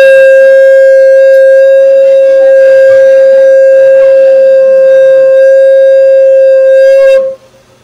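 A conch shell (shankha) blown in one long, loud, steady note that cuts off about seven seconds in.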